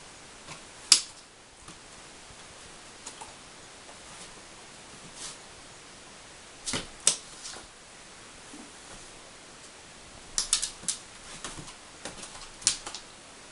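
Basenji's claws clicking and scrabbling on a wooden floor as it pounces around a toy: scattered sharp clicks, with a quick flurry about ten seconds in.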